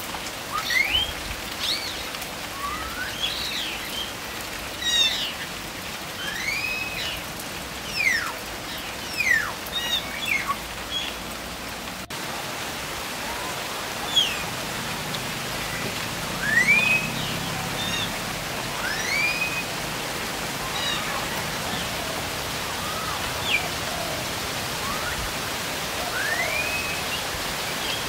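Birds calling with many short whistled notes, rising and falling, scattered throughout, over a steady hiss of rain.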